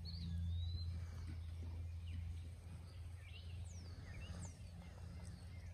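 Quiet countryside ambience: a few birds calling faintly with short high whistles and chirps, some sliding downward, over a steady low hum.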